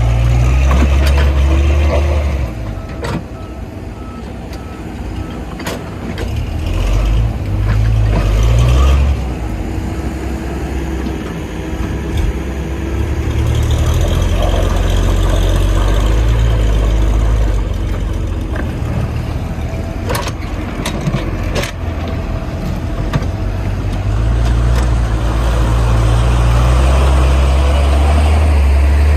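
Heavy diesel engines of an excavator and a stuck truck working under load, the deep engine note swelling and easing several times. A few sharp knocks sound along the way.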